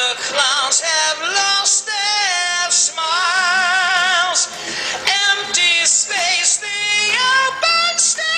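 A high male rock vocal from a recorded song, sung with wide vibrato and quick melodic runs.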